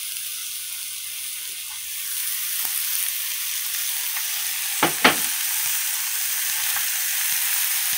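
Straw mushrooms sizzling in hot oil in a wok as they are stir-fried, a steady high hiss that grows a little louder about two seconds in. About five seconds in, the stirring utensils knock sharply against the wok twice in quick succession.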